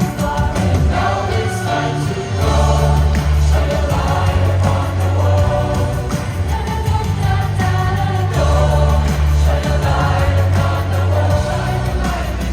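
Music: a pop song with a group of voices singing together over a backing track with a heavy, pulsing bass line.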